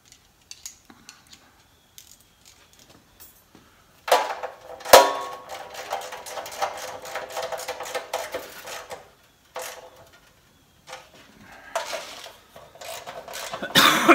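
Bolts being fastened inside a thin sheet-metal tool tray. Light clicking gives way, about four seconds in, to metallic clattering with the tray ringing and one sharp knock; after a short pause the clattering returns near the end.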